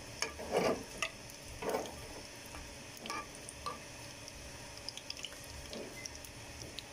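Cumin seeds and bay leaves sizzling faintly in hot oil for a tadka, with a metal spoon stirring and scraping across a small aluminium pan. There are two louder scrapes, about half a second and nearly two seconds in, then scattered light clicks.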